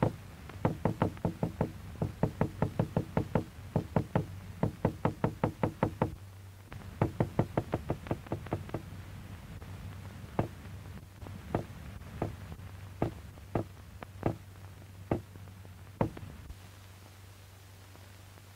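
A hammer striking a hard surface, used as a loud noise stimulus to test the isolated dog's head for reflexes. It knocks in quick runs of about four blows a second, pauses briefly, runs again, then slows to single knocks that stop about two seconds before the end. A steady low hum from the old film soundtrack lies under it.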